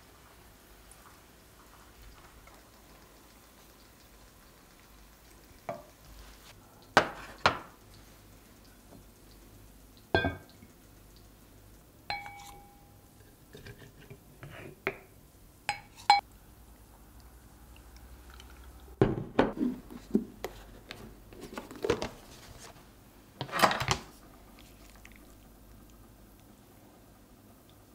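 Dishes and glassware being handled on a table: a scattered series of separate clinks and knocks, a few of them ringing briefly like glass or ceramic.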